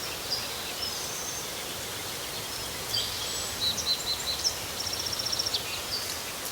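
Birds chirping and whistling over a steady outdoor hiss, with a quick rapid trill about five seconds in.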